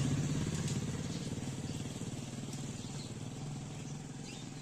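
A motorcycle engine running steadily and fading away.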